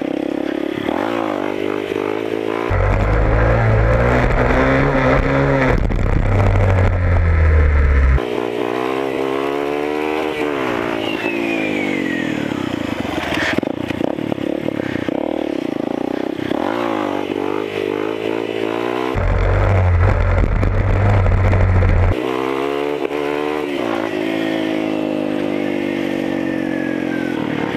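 Dirt bike engine revving up and falling back again and again while riding, its pitch rising and dropping through the gears. Twice, a loud low rumble covers it for a few seconds.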